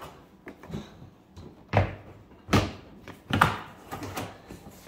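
Hard plastic clunks of Milwaukee Packout toolboxes being handled as the top box is taken off the crate: four sharp knocks under a second apart, beginning a little under two seconds in.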